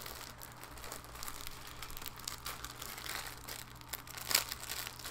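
Clear plastic packaging bag crinkling and crackling as it is handled and pulled open by hand, with a sharper crackle about four seconds in.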